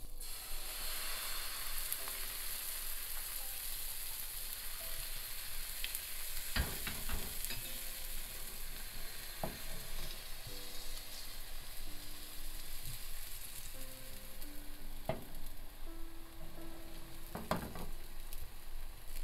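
Thin milk-and-egg pancake batter frying in an oiled nonstick pan, with a steady sizzle and a few short knocks.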